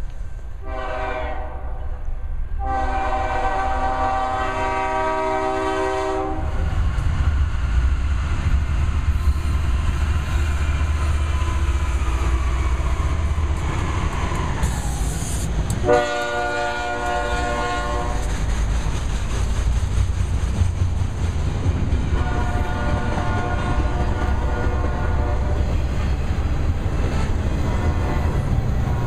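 BNSF freight train with GE ES44DC and C44-9W diesel locomotives rumbling past, pulling double-stack intermodal cars with wheel clatter. An air horn sounds a short blast then a long one in the first few seconds, another blast around the middle, and fainter blasts later on.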